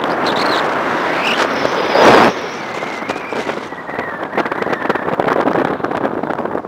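Wind buffeting the microphone of a camera mounted on a moving car's roof, with road noise underneath. A loud blast comes about two seconds in, and the sound turns crackly with many sharp pops in the second half.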